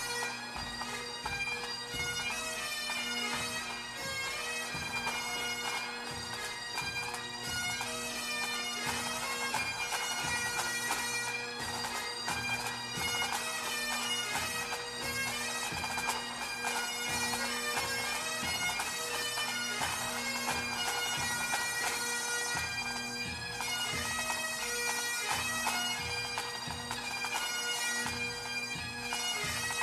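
A pipe band of Great Highland bagpipes playing a march: the melody changes note constantly over steady, unbroken drones.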